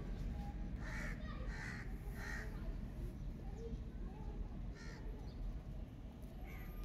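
A crow cawing three times in quick succession about a second in, then once more near five seconds, over a low steady rumble.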